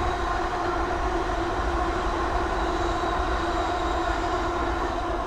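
A pair of East Midlands Railway Class 360 electric multiple units passing: a steady whine of several tones over a low rumble from the wheels on the rails.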